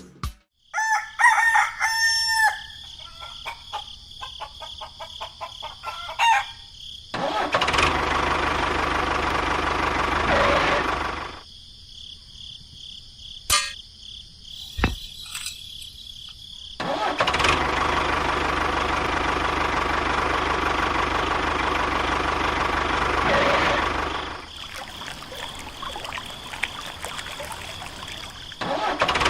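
A rooster crows about a second in. A small engine then runs in two long stretches, stopping in between and starting again near the end.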